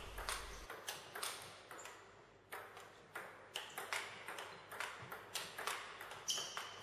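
Table tennis rally: the ball clicking off the rubber-faced bats and bouncing on the table in a steady back-and-forth, two or three sharp clicks a second.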